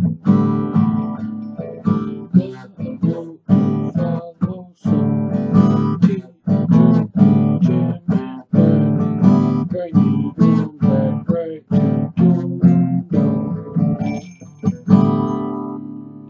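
Acoustic guitar strummed in chords, a steady run of strokes; near the end one chord is left to ring and fades.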